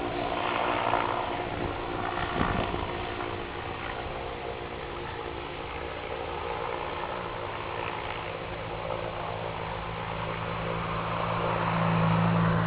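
Goodyear blimp's propeller engines droning steadily overhead, growing louder near the end as the airship heads toward the listener.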